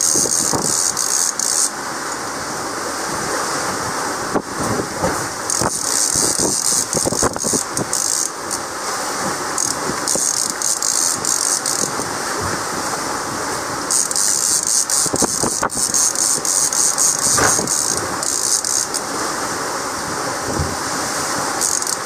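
Strong wind buffeting the microphone and sea water rushing past a sailboat's hull at speed, over a steady loud hiss that swells and fades, with many short rattling clicks.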